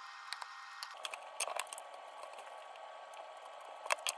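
Scattered small clicks and crackles of masking tape and a painted 3D-printed plastic piece being handled, over a steady hiss, with a louder cluster of clicks near the end.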